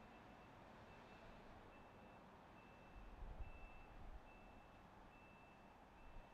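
A vehicle's reversing alarm beeping faintly, one steady high tone repeated a little faster than once a second, over a low rumble that swells briefly about three seconds in.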